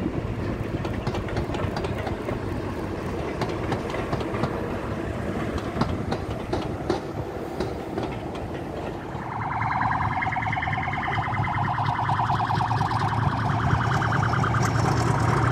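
Diesel-hauled passenger train running by, its wheels clicking over the rail joints above a low engine rumble. About nine seconds in, a louder diesel locomotive takes over: a Class 50's English Electric V16 engine working, with a deep drone and a rapidly pulsing buzzing note that grow louder as it comes closer.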